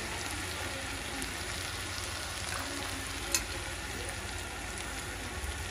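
Chicken cubes, peas and capsicum sizzling steadily as they fry in oil in a shallow pan, with a single sharp click a little over three seconds in.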